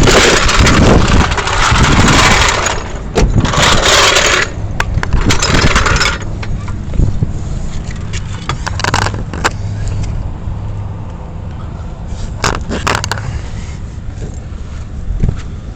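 Metal scraping and clanking as a car jack and tools are worked into place under a car for a tire change, loudest in the first six seconds. After that come a few sharp metallic clinks over a low steady hum.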